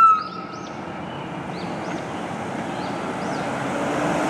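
Police SUV with its lights on driving through street traffic: road and engine noise growing steadily louder as it approaches, with a few faint high chirps. A held high tone fades out right at the start.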